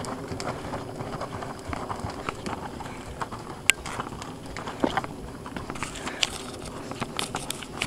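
Hoofbeats of a horse cantering on sand footing, soft and uneven, with a few sharp clicks standing out partway through.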